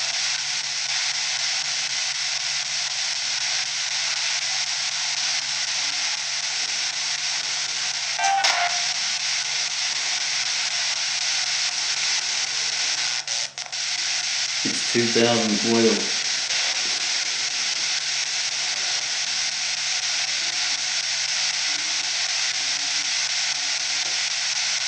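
Steady hiss of a recorder's microphone noise turned up high, with a low hum beneath. A short click comes a little over a third of the way in, and a brief voice is heard about two-thirds in.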